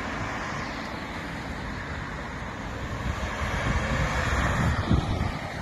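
A car driving past on the road, its tyre and engine noise fading a little before the end, with wind buffeting the microphone.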